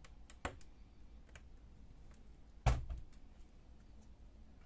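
Light clicks and taps of a small screwdriver and gloved fingers working on a laptop's plastic screen bezel, with one much louder thunk about two and a half seconds in.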